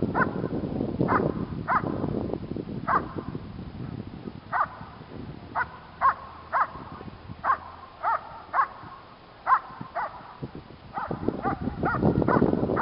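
Working dog barking repeatedly at a protection helper, one short sharp bark about every half second to a second, quickening near the end. This is the guard or hold-and-bark phase of Schutzhund protection work, where the dog barks at the standing helper until the handler comes up.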